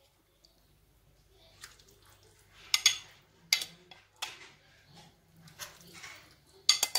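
Metal ladle clinking against a stainless steel stockpot while pushing dried bean curd sticks down into chicken broth: a few sharp knocks with faint sloshing of liquid between them.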